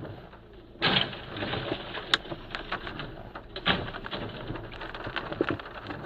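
A box van overturning: a sudden loud crash about a second in as it hits the road on its side, then scraping and clattering of debris, with another loud knock about halfway through.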